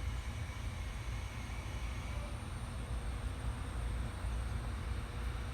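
Steady low rumble with a faint constant hum: workshop background noise.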